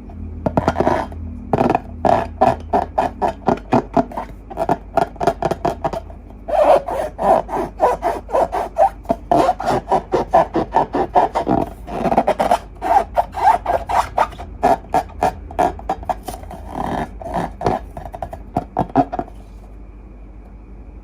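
Fast, rhythmic rubbing strokes, about three or four a second, with a brief pause about six seconds in; they stop a couple of seconds before the end.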